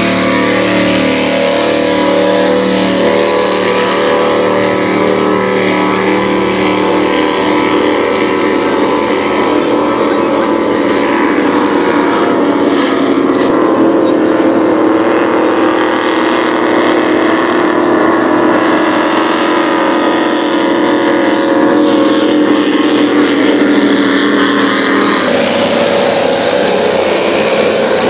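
Racing powerboat engines running at speed out on the bay, heard as a loud, steady drone of several pitches; the drone changes character near the end as the boats pass.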